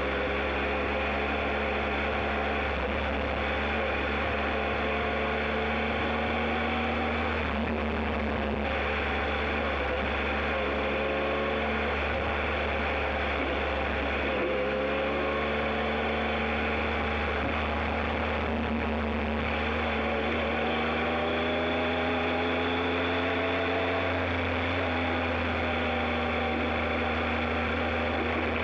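Motorcycle engine running under way on a dirt road, its pitch climbing and then stepping back down several times as the rider accelerates and shifts, with a steady low rumble from the road underneath.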